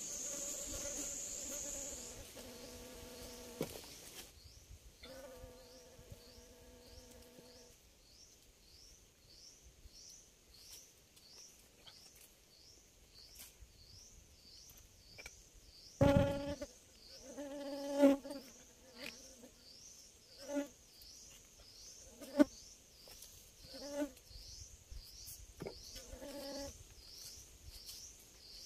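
Forest insects: a steady high buzz for the first two seconds, then a high chirp repeating about twice a second. Several short, louder pitched sounds come in the second half.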